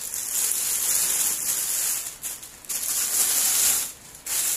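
Clear plastic bag crinkling and rustling as a folded tripod stand is pulled out of it, in three bursts with short pauses between.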